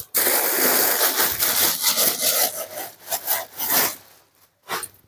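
Black crocodile-embossed leather tote bag rubbing and scraping as it is handled and opened close to the microphone. The rasping noise runs about four seconds, then two short rubs follow near the end.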